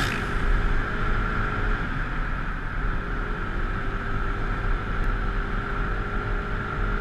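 Motorcycle running steadily while riding, heard through a helmet-mounted microphone, with wind rushing past.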